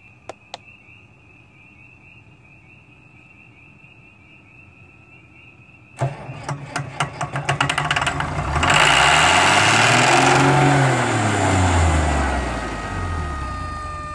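Farmall 706's D310 six-cylinder diesel cranking on the starter about six seconds in, catching within a couple of seconds and racing up to high speed, then running back down. The throttle is stuck at full ("pretty fast"), the first run after re-timing the Bosch VA6 injection pump. Crickets chirp steadily before it starts.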